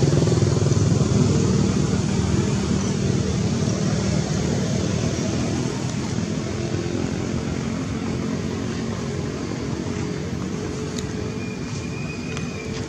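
A motor vehicle engine running steadily with a low hum, slowly fading. A brief high chirp comes near the end.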